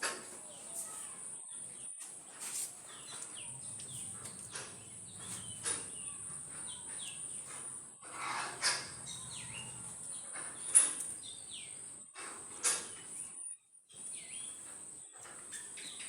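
Outdoor farm ambience: small birds chirping over a steady high-pitched buzz, with a few sharp knocks, the loudest about eleven seconds in.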